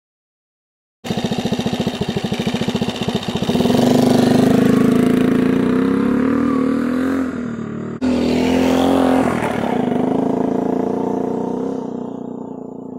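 Honda C105T Trail 55's small single-cylinder four-stroke engine puttering past, its firing pulses plain as it approaches, swelling as it passes and then fading as the bike rides away. The engine runs on a freshly rebuilt carburettor after decades of neglect.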